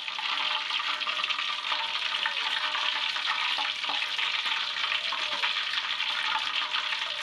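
Hot cooking oil crackling and sizzling steadily in an aluminium wok, with leftover bits of coriander-spiced chicken still frying in it. The crackle is what the cook waits to die away before the next chicken pieces go in.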